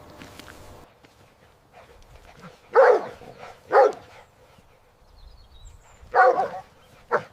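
Dog barking: four short barks, two about a second apart in the middle, then two more near the end.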